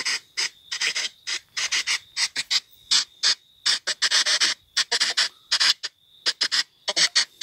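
Spirit box app on a smartphone sweeping through radio frequencies, playing rapid, choppy bursts of static and broken radio fragments through the phone's speaker, with a thin steady high tone behind them.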